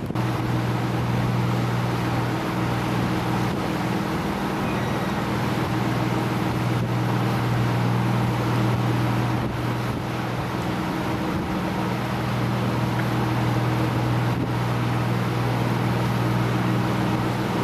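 Motorboat engine running steadily under way: a steady low hum over an even rushing hiss.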